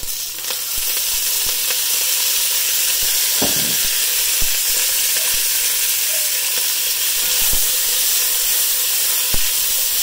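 Green beans sizzling hard in a very hot, dry-fried pot the moment oil is added, a loud steady hiss that starts suddenly, with scattered small knocks and pops through it.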